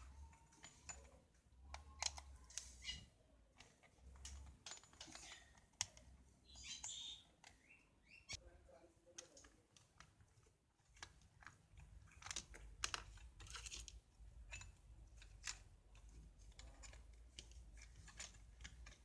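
Faint, irregular clicks, taps and short scrapes of a small plastic rechargeable torch being handled and pried open by hand, over a faint low hum.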